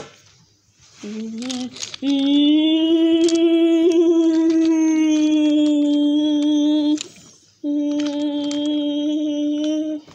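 A child's voice humming long, steady held notes: a short rising note, then one long note of about five seconds and another of about two seconds at the same pitch. Light clicks of wooden toy trains on wooden track come under it.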